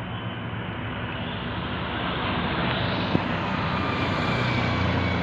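Convoy of tour buses approaching along the road, engine and tyre noise growing steadily louder.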